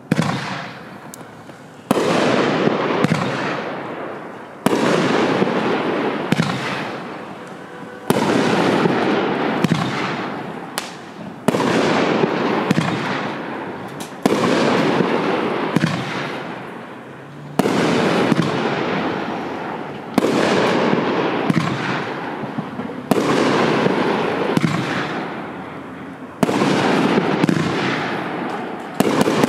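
LK2015 Freedom Tower 200-gram fireworks cake firing shot by shot, about eleven shots in all, one every two to three and a half seconds. Each shot starts with a sudden report, followed by a dense noisy tail with small sharp pops that fades away before the next one.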